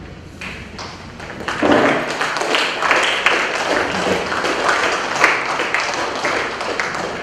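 Audience applauding: scattered claps at first, then the clapping swells about a second and a half in and carries on, easing off near the end.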